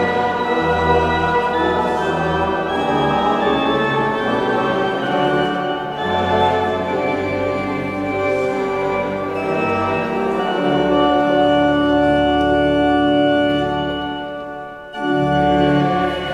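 Church pipe organ playing a hymn in sustained chords, with the congregation singing along. It dips briefly near the end, at a break between lines, then comes back in.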